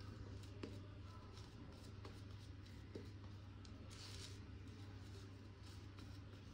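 Faint scrubbing and swishing of a Boti N3C shaving brush working lather on the face, with a few soft clicks, over a steady low hum.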